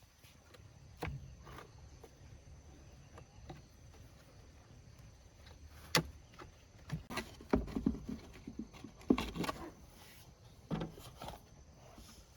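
Scattered knocks and clicks: a sharp one about six seconds in, and a busier cluster of knocks and low thuds a little later.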